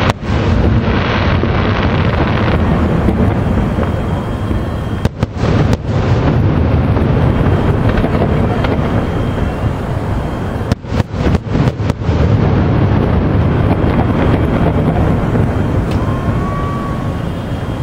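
Aerial fireworks shells bursting in quick succession, a loud, continuous booming rumble, with brief cut-outs in the sound about five and eleven seconds in.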